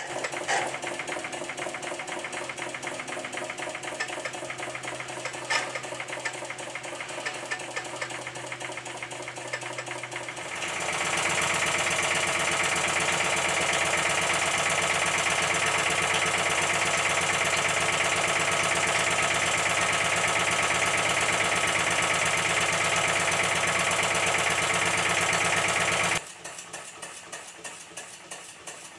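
Live-steam model traction engine of the "Minnie" type running under steam, with a fast, even mechanical clatter from its cylinder and motion. About ten seconds in the sound turns louder and fuller, with a steady hiss added. Near the end it drops abruptly back to the quieter clatter.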